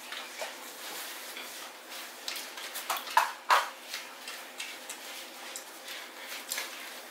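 Scattered small clicks and rustles of cardboard nugget boxes and dipping-sauce cups being handled at a table while people eat, a cluster of sharper clicks a few seconds in.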